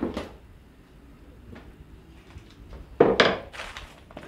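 Objects handled on a wooden workbench: a short knock at the start, then a louder wooden thunk about three seconds in, as the glue bottle is picked up.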